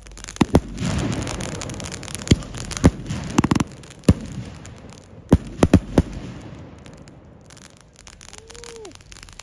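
Believe "Bigfoot" 25-shot salute cake firework firing: about ten sharp bangs of shells bursting overhead, in irregular clusters, with a dense noisy wash between them.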